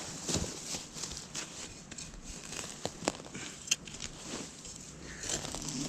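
Crackling and scraping of soil and roots being dug and pulled apart by hand, with scattered small clicks.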